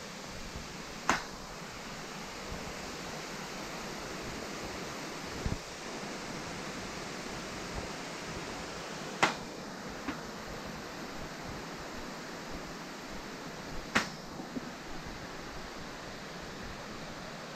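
Steady rush of flowing water, a waterfall or stream, with three sharp clicks well apart and a duller knock between the first two.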